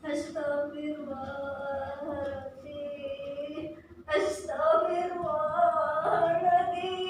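A person's voice in long, held, wavering tones, louder and higher after a sharp start about four seconds in.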